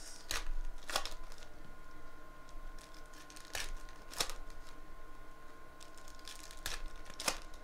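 Foil trading-card pack wrappers being torn open and crinkled by hand, a handful of sharp crackles scattered through the few seconds.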